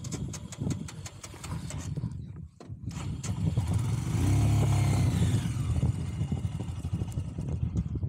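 Motorcycle engine revving up about three seconds in and held high as the bike bogs down in soft sand. A run of clicks and knocks comes before it.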